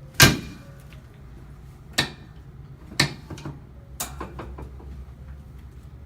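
Chiropractic drop table's pelvic section snapping down under adjusting thrusts: four sharp knocks, the first loudest, then three about a second apart.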